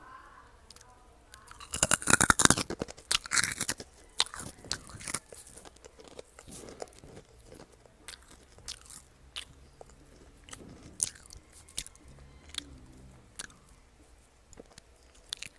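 Close-up chewing and crunching of dry chocolate cereal and crackers. The loudest bout of crunching comes about two seconds in, then lighter chewing with scattered crackles.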